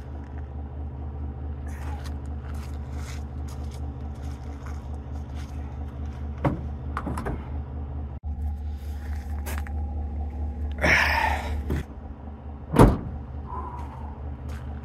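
Chevrolet Silverado pickup's engine idling steadily. A few knocks come about six and a half seconds in. Near the end there is one loud slam as the tailgate is shut.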